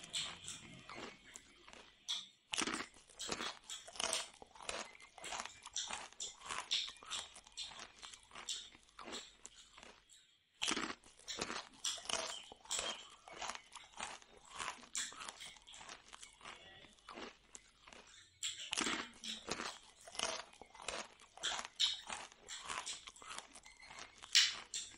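Close-up crunching and chewing of crisp jalebi: a quick run of crunchy bites and chews that stops briefly three times.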